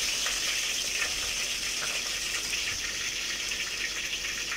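Curry leaves sizzling in hot coconut oil, a steady hiss with small crackles that slowly dies down.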